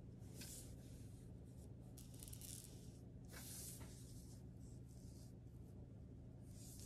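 Faint swishes of a fine calligraphy brush stroking across paper: several short strokes with pauses between them, over a low steady hum.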